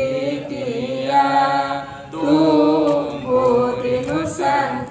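A woman singing a syair, an Indonesian devotional sung poem, solo into a handheld microphone, drawing out long wavering notes with a short breath about two seconds in.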